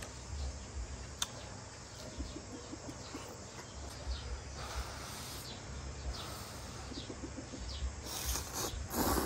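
A person slurping a mouthful of instant noodles, loudest near the end, with a light click about a second in. Birds chirp in the background.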